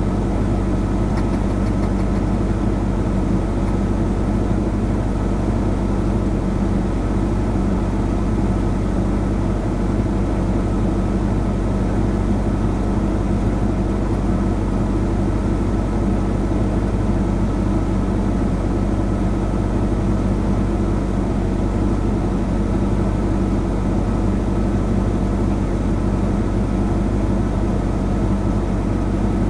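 Vehicle engine idling steadily, an even low hum that holds the same speed throughout.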